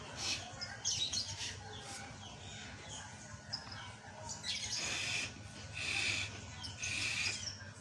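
Small birds chirping in the background, with three short hissing bursts about a second apart in the second half.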